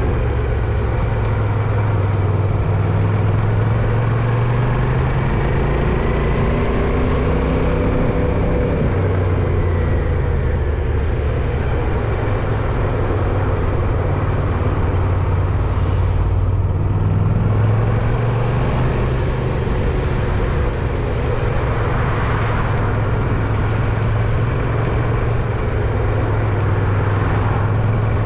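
Steady traffic and road noise heard from a bicycle, with a passing vehicle's engine note rising and falling a few seconds in.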